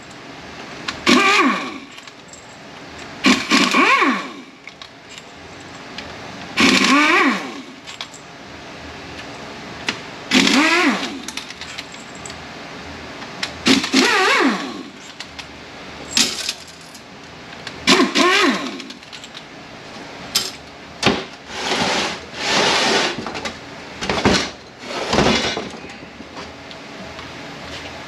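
A power tool with a Torx socket runs out the pump bolts of a ZF 6HP26 automatic transmission in repeated bursts of one to two seconds, its motor pitch rising and falling in each. Metal bolts clink between runs, and near the end come shorter bursts and sharp knocks.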